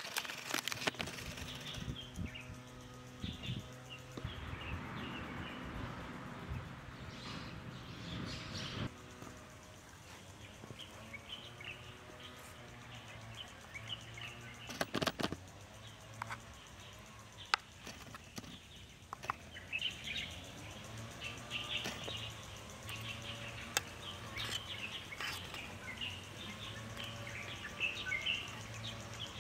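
Aluminium foil crinkling as a foil parcel is unwrapped for the first several seconds, then a few sharp clinks from an aluminium mess tin and fork. Small birds chirp throughout in the background.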